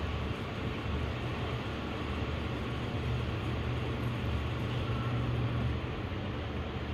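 Steady low hum with an even hiss over it, the constant background noise of a large indoor riding arena, with no clear hoofbeats on the soft sand footing.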